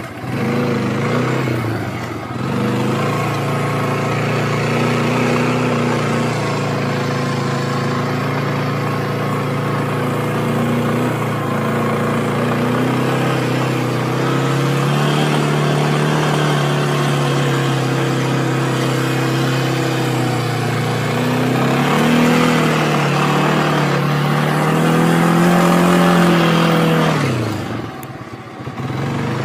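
Small vehicle engine running under load, its pitch rising and falling with the throttle while climbing a steep trail. It eases off briefly about two seconds in and again near the end.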